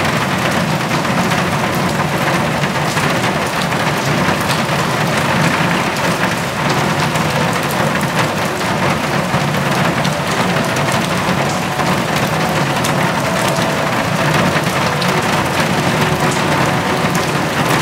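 Steady heavy rain: a dense, even hiss full of small drop ticks.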